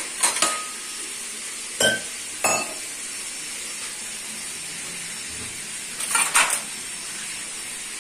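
Breaded chicken pieces frying in hot oil with a steady sizzle. Three sharp, ringing clinks of utensils on cookware come in the first three seconds, and a brief clatter comes about six seconds in.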